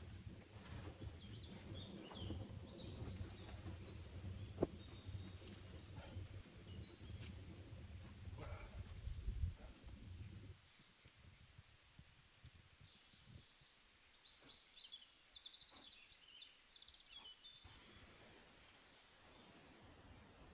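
Faint small-bird chirps and a short rapid trill now and then, over a low rumble that stops about halfway through, with a few sharp clicks in the first half.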